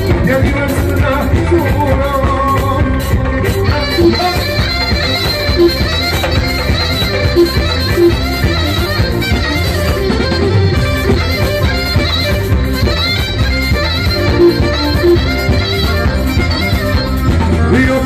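Live Albanian folk wedding music played loud by a band, with a steady driving beat and a singer's voice over it.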